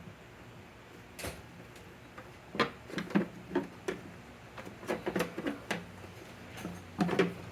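Irregular light clicks and knocks of small parts being handled and fitted into a scooter frame: one tap about a second in, then bursts of several taps through the rest.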